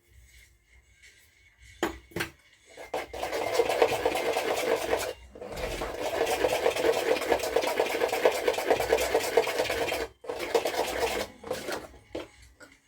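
Pancake batter being beaten fast by hand in a bowl with a utensil, since there is no whisk: a rapid, even rattling that pauses briefly about five seconds in, runs on, and stops suddenly about ten seconds in.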